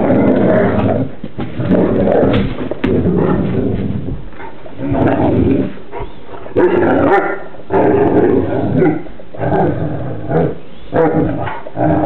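Two Newfoundland dogs play-wrestling, giving a string of loud growls, barks and moaning calls, about ten in all with short pauses between.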